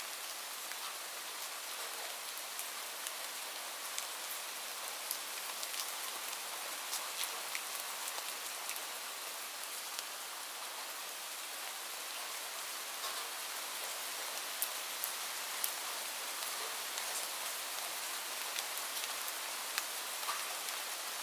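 Light rain falling steadily, a continuous hiss with scattered individual drops ticking sharply on a surface.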